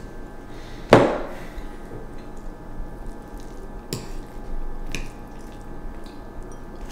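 Metal spoons clinking and scraping against bowls as two people eat mush: a few scattered taps, the sharpest about a second in, over a faint steady hum.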